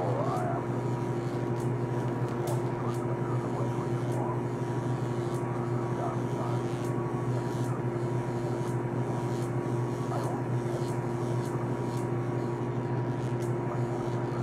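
Steady low mechanical hum with a few constant tones that hold unchanged.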